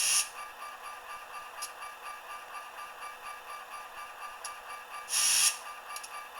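Sound decoder's simulated SD40-2 diesel engine running steadily with a faint even pulse, played through a tiny sugar cube speaker, so it has almost no bass. Two short bursts of air hiss come right at the start and about five seconds in.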